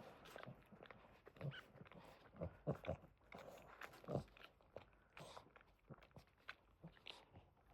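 Quiet, irregular wet smacks and clicks from a Boston terrier mother's mouth as she licks and chews.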